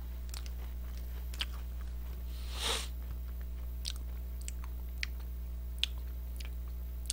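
A person chewing a crunchy Pepero biscuit stick close to the microphone, with small scattered crunches and mouth clicks and a short breathy rush about two and a half seconds in. A steady electrical hum runs underneath.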